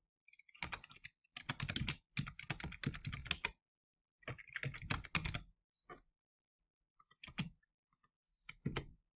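Computer keyboard typing in several quick bursts of keystrokes with short pauses between them.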